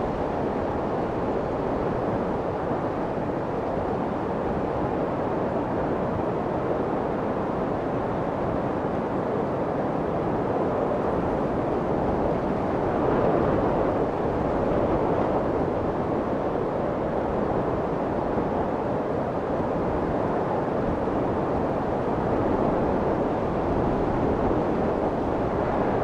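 A steady, even rushing noise with no distinct events and no clear pitch, swelling slightly about halfway through.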